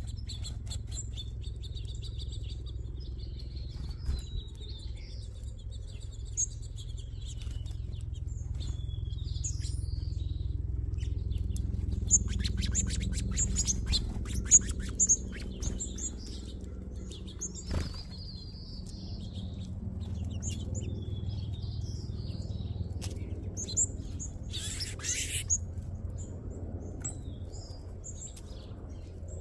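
A flock of small seed-eating birds chirping and twittering at a feeding spot, with flurries of wingbeats and clicks around the middle and a brief rush of wings near the end, over a steady low rumble.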